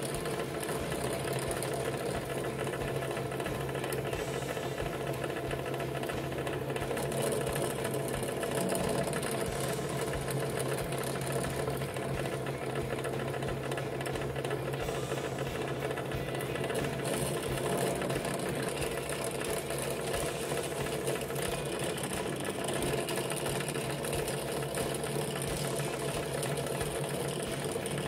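Benchtop drill press motor running steadily, its bit drilling holes through stacked plywood pieces.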